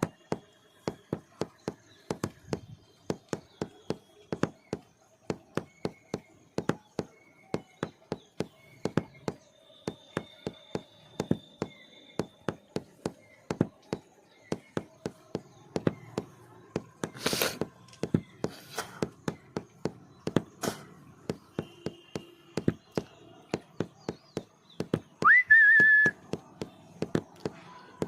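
A steady run of sharp clicks or taps, about two a second. Near the end comes a loud whistle that rises quickly, then holds one steady note with a slight waver.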